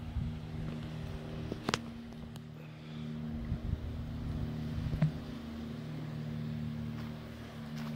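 Steady low engine drone with light wind noise, and two sharp clicks, one at about two seconds and one at about five seconds.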